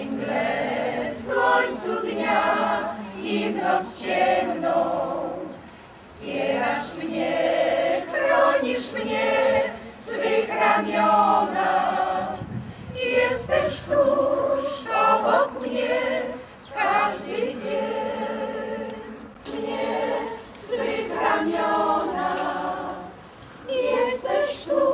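A mixed choir of older amateur singers, mostly women's voices, singing a cappella. The song moves in phrases of a few seconds, with short breaks between them.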